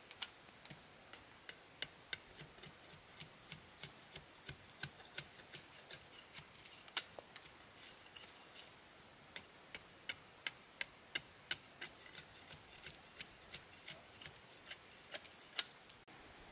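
A long run of short, sharp clicks or snips, about three a second, from hand-tool work, with one louder click about seven seconds in.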